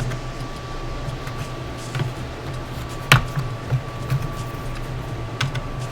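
A few sharp clicks and taps of a small screwdriver and screws against a laptop's plastic case, the loudest about three seconds in, over a steady low hum.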